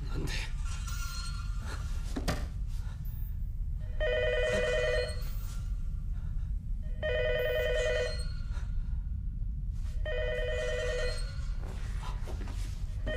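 A telephone ringing: an electronic warbling ring about a second long, repeating every three seconds, three times from about four seconds in, over a steady low drone.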